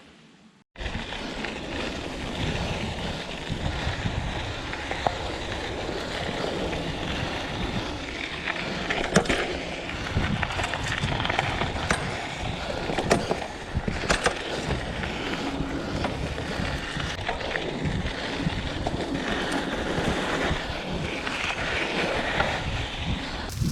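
Mountain bike rolling over a dirt trail: steady tyre rumble with rattles and sharp knocks over bumps, and wind on the microphone.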